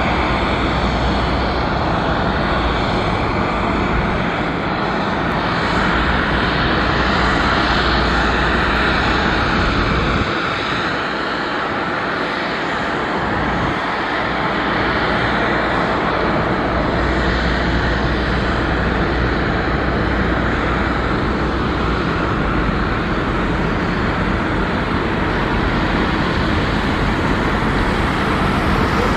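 Boeing 767-300F freighter's jet engines running during pushback: a steady, loud rush with a high whine.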